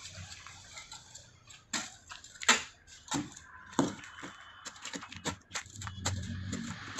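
Metal mattock blade chopping into hard soil and tree roots, about a dozen sharp, uneven strikes with scraping in between.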